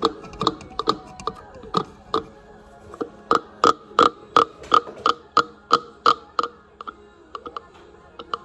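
Old 'ooga' electric horn for a Ford Model A tapping on the bench: a run of sharp, ringing clacks, irregular at first, then a steady three or so a second through the middle, fading to lighter ticks near the end. It taps rather than honks.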